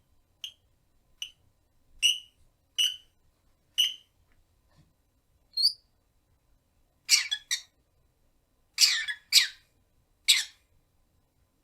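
Rosy-faced lovebird calling: short, sharp chirps about once a second, a brief rising whistle, then a handful of louder, harsher squawking calls in the second half.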